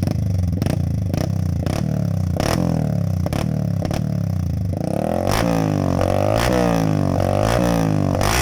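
Yamaha Sniper 150 (Y15ZR) single-cylinder four-stroke engine through an open Akrapovic exhaust, running near idle and then revved up and down repeatedly, with quick throttle blips about every second in the second half.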